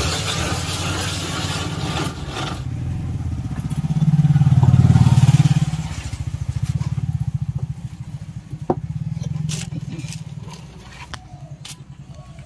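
Hand-cranked cast-iron ice gola machine shaving a block of ice, a gritty scraping that stops after two or three seconds. Under it runs the low pulsing of a motorcycle-type engine, which swells loudest around the middle and then fades. A few sharp knocks follow near the end.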